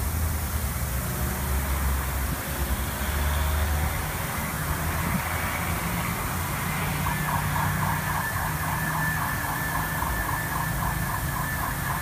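High-pressure fog misting system running, with a steady machine noise and a low hum. About seven seconds in, a fast rhythmic pulsing of roughly four beats a second starts alongside a steady high tone.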